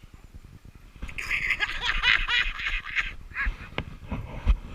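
A Chihuahua yapping and snarling in a rapid, high-pitched run from about a second in, telling off a bigger dog, with a couple of shorter yips after.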